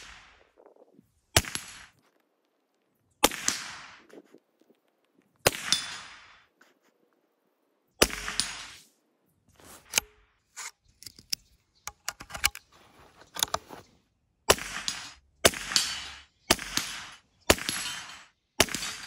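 .22 LR shots from a CZ bolt-action rifle fired at reactive steel targets, each a sharp crack with a short ringing tail: several spread out a couple of seconds apart, then a quick string about a second apart near the end. In the middle comes a run of small metallic clicks from the rifle's action being worked.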